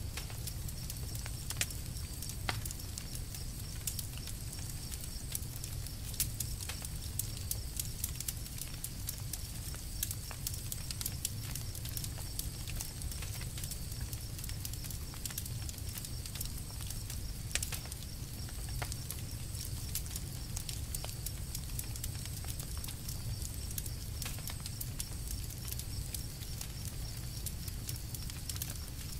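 Campfire burning, with irregular sharp crackles and pops of the burning wood over a steady low rumble.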